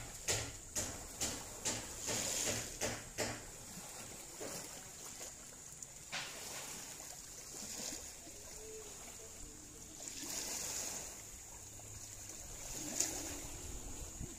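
Shallow seawater lapping at the surface, with a quick run of soft slaps about twice a second for the first few seconds. Then a low, steady wash of water with a couple of single splashes.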